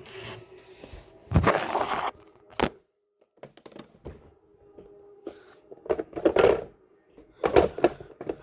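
Handling noise: a few separate thuds and rustling bursts as toys are picked up and moved close to the microphone.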